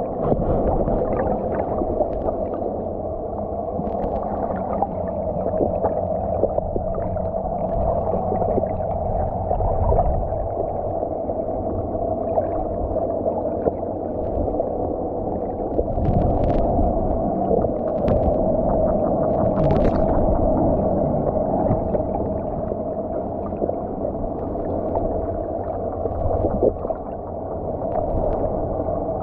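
Underwater noise picked up by a submerged camera: a steady droning hum over a low rumble, with scattered clicks and gurgles, and a couple of sharper clicks about two-thirds of the way in.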